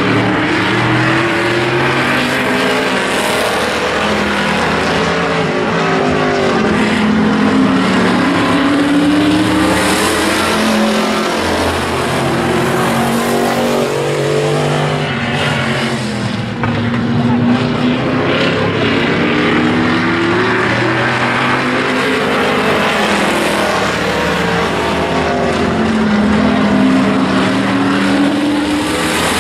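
Several street stock race cars' engines running hard in a pack, revving up and easing off over and over as they circle the oval, the pitch rising and falling as the cars pass.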